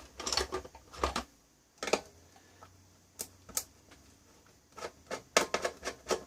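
Small metal tools clicking and clinking in irregular knocks as hollow nut drivers are picked through and tried on the meter mounting nuts, with a cluster of clicks in the first second and another near the end.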